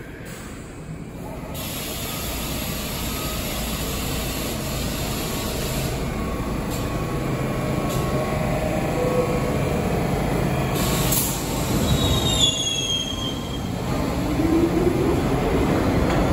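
New York City subway train running into the station, growing steadily louder as it nears, with brief high-pitched wheel squeals about twelve seconds in.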